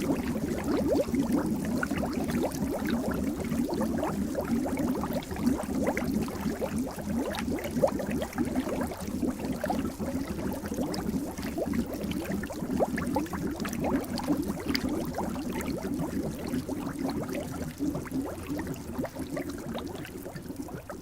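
Water bubbling: a dense, continuous stream of small bubble blips, each rising quickly in pitch, fading out near the end.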